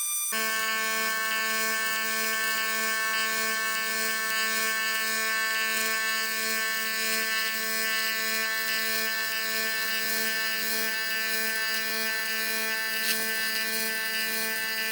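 AC TIG welding arc on aluminum: a steady, even buzz with a hissing edge, starting about a quarter second in, holding unbroken as a bead is laid, and stopping right at the end.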